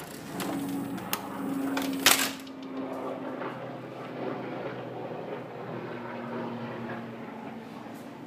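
Steady low background hum with a faint wavering tone, a light click about a second in and a sharp knock about two seconds in.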